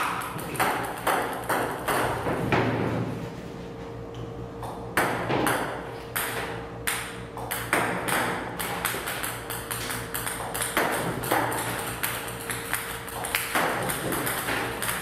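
Table-tennis balls fired from a ball-launching robot, clicking off the table and the cat in a steady stream, about one to two a second, with a steady hum underneath.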